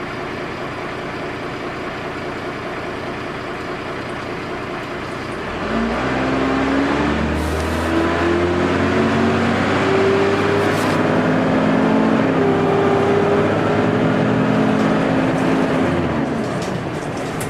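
Dennis Dart SLF bus engine ticking over, then about five and a half seconds in pulling away and accelerating. Its pitch climbs and drops back in steps through the gear changes, carrying a slight hoover-like whine, and it eases off near the end.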